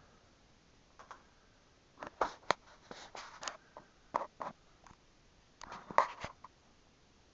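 Scuffs and sharp clicks in four or five short clusters, from someone moving about and handling the camera in a small rock cave.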